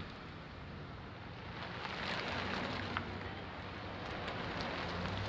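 A truck's engine running slowly close by, a low steady hum that sets in about two seconds in, over wind rushing across the microphone.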